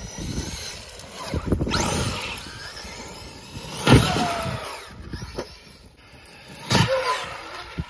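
Electric RC monster truck running across grass, its motor and tyres making a steady rough noise, with a loud knock about four seconds in as it hits the ramp and goes airborne, and smaller knocks and thuds as it bounces.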